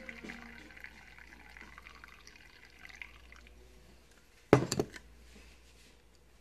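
Brewed coffee pouring from a glass Chemex carafe into a mug, a faint trickle that tapers off over the first few seconds. About four and a half seconds in, the glass carafe is set down with a sharp clunk, the loudest sound.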